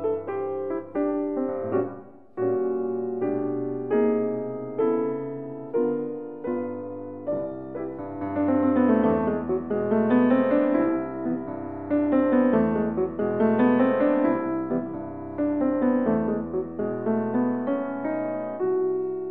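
Piano music: notes and chords struck one after another and left to fade, the playing growing fuller and louder about eight seconds in.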